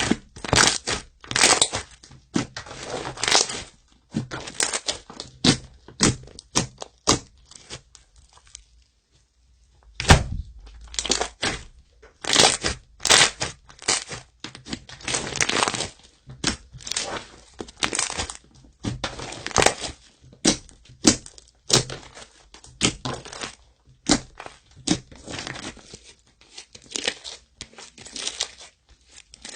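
Slime being squeezed and worked by hand, giving irregular crackles and pops, with a short pause about eight seconds in.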